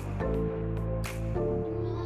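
Background music: a steady low bass with held chords and a sharp beat.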